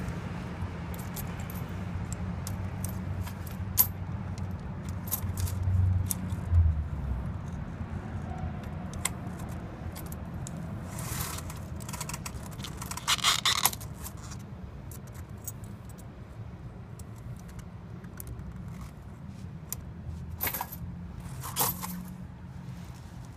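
Steel cable tire chain being handled and fastened: the steel spring rollers, cables and hooks clink and jingle against each other in scattered sharp clicks, with a few louder bursts of jingling midway and near the end.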